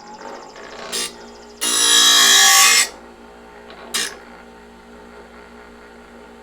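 Harbor Freight bench grinder running steadily with its motor hum, while a blade is ground against the wheel. There are two brief touches, a loud grind of about a second after them, and another brief touch a couple of seconds later.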